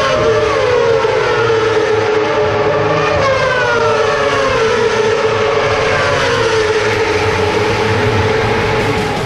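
Several racing motorcycles' engines at high revs passing along the track, their overlapping pitches sweeping down and up again and again.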